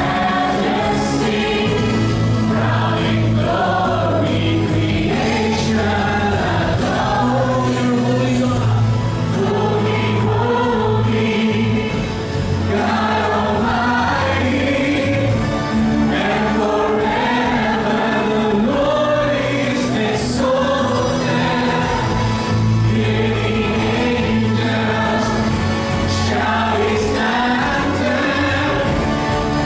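Live worship band playing a gospel praise song: a group of singers over electric guitars, bass guitar and keyboard, with sustained low bass notes.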